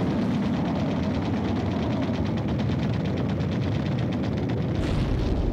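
Rapid aircraft machine-gun fire, a fast even rattle of more than ten shots a second over a low rumble. A deep rumble swells near the end.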